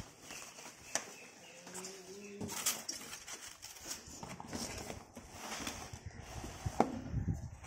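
Cardboard box and packing being handled: items such as polystyrene sheets and a product carton are lifted out, with scattered knocks, clicks and rustles.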